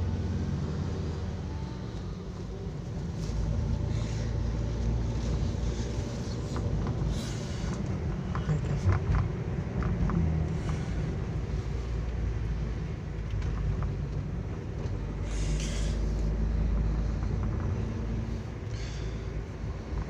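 Moving car heard from inside the cabin: a steady low rumble of engine and tyres on the road, with a few faint ticks and a couple of brief soft swells of hiss.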